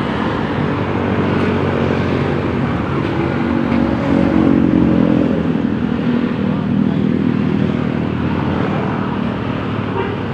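A small engine running steadily, growing louder and a little higher in pitch about four seconds in, then settling again.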